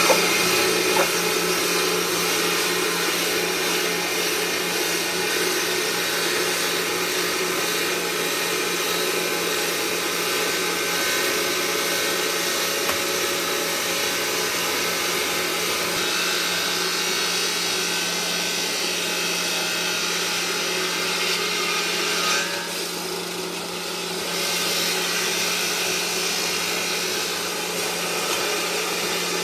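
Stone-working machinery running steadily, a motor hum under a continuous grinding noise. The grinding eases briefly about 22 seconds in and picks up again about two seconds later.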